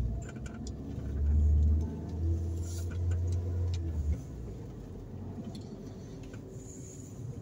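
Car driving along, a low engine and road rumble that swells about a second in and drops away sharply near the middle, with a few light clicks and rattles.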